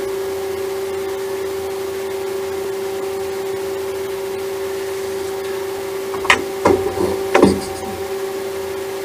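CNC lathe running with a steady hum. Three sharp knocks come a little past the middle.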